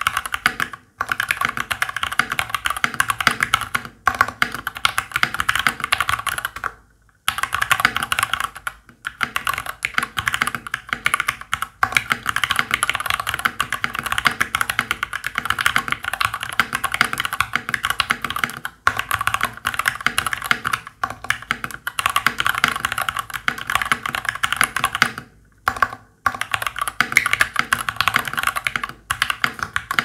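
Fast continuous typing on an FL-Esports MK870 mechanical keyboard with a steel plate, Gateron Milky Brown tactile switches and Sky Dolch PBT keycaps: a dense stream of key clacks, broken by a few brief pauses.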